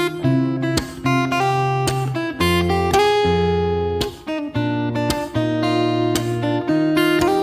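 Background music: a strummed acoustic guitar playing chords, with a new chord struck about every half second to a second.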